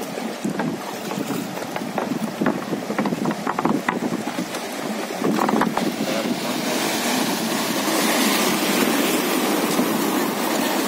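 Rushing river water splashing around a wooden raft as it runs through rapids, with small splashes and knocks in the first half, then a louder, steadier rush of whitewater from about six seconds in.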